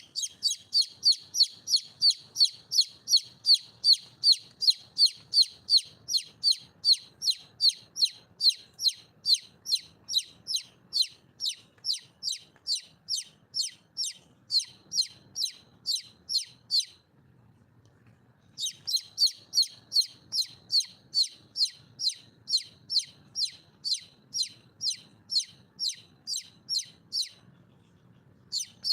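Red junglefowl hen calling: a fast, even series of short, high-pitched downslurred notes, about two or three a second. The series breaks off twice for a second or two, about halfway through and near the end, then starts again.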